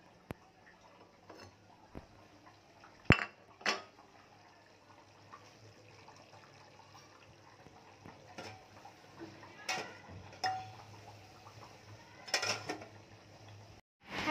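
Steel kitchenware and utensils clinking and knocking: scattered sharp strikes, the loudest two close together about three seconds in and more in the second half, over a faint low steady hum.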